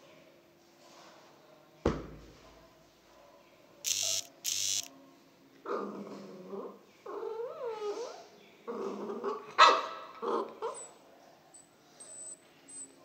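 Pitbull puppy whining and yapping, its pitch bending up and down, from about six seconds in, as it begs for a treat. Before that, a sharp knock about two seconds in and two short scratchy noises around four seconds.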